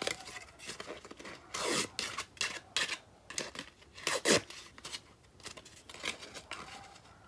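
A bone folder rubbing along the scored folds of embossed cardstock to break up the paper fibres: irregular dry scraping strokes with paper rustling, a few of them louder.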